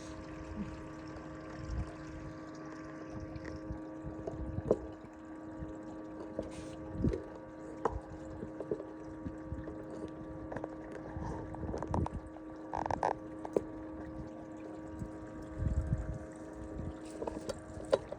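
Steady hum of a small motor aboard a fishing boat, holding one pitch throughout, with scattered light knocks and clicks on top.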